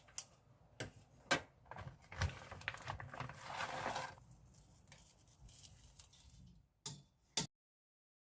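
Kitchen handling sounds during food preparation: several sharp clicks and knocks, with a noisy stretch of about two seconds a couple of seconds in.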